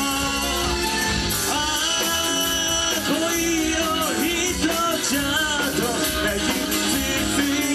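A rock band recorded live, playing a song with guitar and drums. A lead line bends in pitch over the band.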